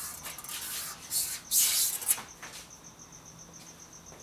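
Several short scraping strokes, the loudest about a second and a half in, ending in a sharp click. Then a high chirp starts, repeating about six times a second like a cricket.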